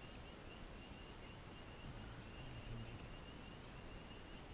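Quiet evening outdoor ambience: a faint chorus of high, evenly repeated chirps from distant calling animals, with a brief faint low hum about two seconds in.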